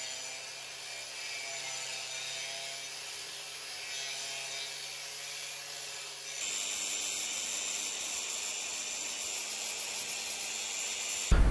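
Angle grinder grinding the inner face of an aluminium part: a steady grinding hiss that grows a little louder and brighter about six seconds in.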